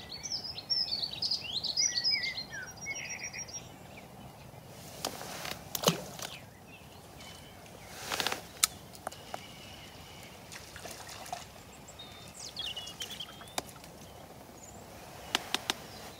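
A small songbird sings a rapid, jumbled phrase of high twittering notes for the first three seconds or so, then a few scattered clicks and short rustles and one more brief chirp against a faint steady background hiss.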